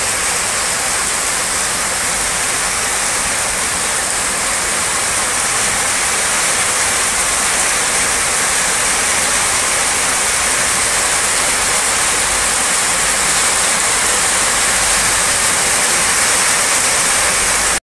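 Heavy downpour of rain, a steady, loud hiss of pouring water that cuts off suddenly near the end.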